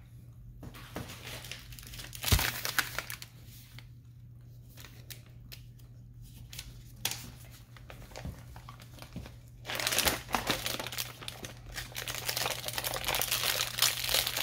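Plastic crinkling and rustling as it is handled: one burst about two seconds in and a longer stretch from about ten seconds on, over a steady low hum.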